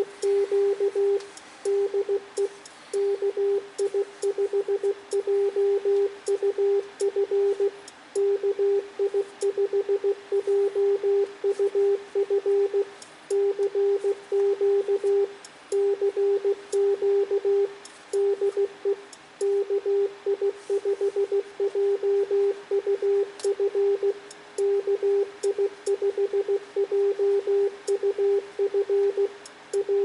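Yaesu FT-991A transceiver's CW sidetone sending a computer-keyed CQ call in Morse code: a single steady tone switched on and off in dots and dashes, with short pauses between words.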